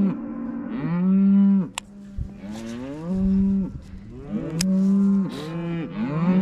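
Several cows mooing over one another, long drawn-out moos following each other almost without a break. They are hungry cattle calling as they come in to be fed.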